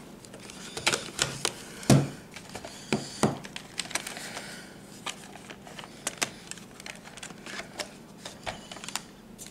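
Hard plastic clicks, knocks and rattles of a camcorder battery pack being unlatched and slid out of a VHS-C camcorder and handled. An irregular string of sharp clicks, the loudest about two seconds in.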